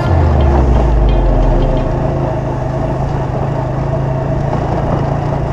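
Small motorcycle engine running as the bike rides along. There is a heavier low rumble for the first couple of seconds, then the engine settles to a steady hum.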